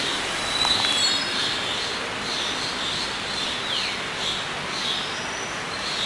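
Forest ambience: a steady hiss with a high chirp repeating about twice a second and a few brief bird calls, one sliding downward a little before the four-second mark.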